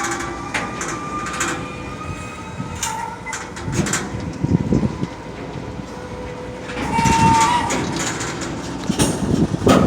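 Freight train rolling slowly past in reverse during car switching: a steady rumble with repeated metallic clicks and on-and-off squealing from the wheels.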